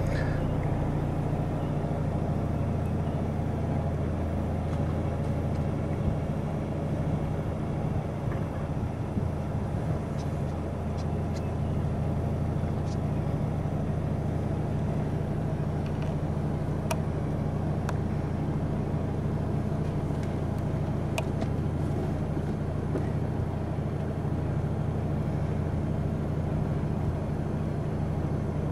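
A car engine idling with a steady low hum, with a few faint clicks now and then.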